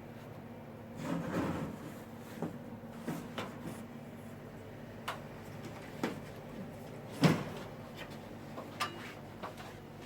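Scattered knocks and clicks over a steady low hum, with a rustling clatter about a second in and the loudest knock about seven seconds in.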